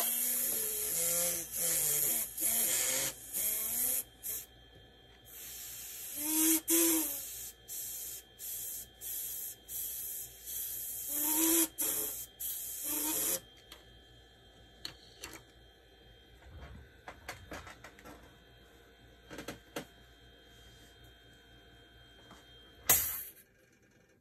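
Airbrush spraying paint, a hiss that starts and stops in short and longer bursts as the trigger is worked, for the first thirteen seconds or so. Then it goes mostly quiet with a few faint clicks, and one short loud blast of spray comes near the end.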